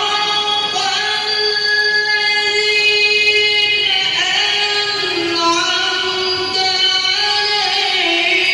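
A Quran reciter's high voice in melodic tilawah, holding one long drawn-out phrase, the pitch stepping down in the second half and then back up.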